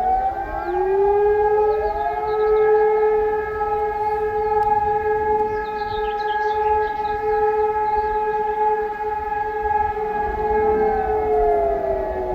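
Several outdoor warning sirens sounding together at different pitches, giving the 'Feueralarm' fire-alarm signal on test. They finish rising in the first second, hold a steady tone for about ten seconds, and begin winding down near the end, as the first tone of the interrupted signal ends.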